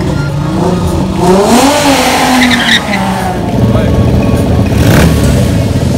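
Mk1 Volkswagen Golf race car revving up and launching from the start, the engine pitch rising then falling as it shifts, with a brief squeal of tyres. From about three and a half seconds in, classic racing motorcycles idling with a steady low rumble.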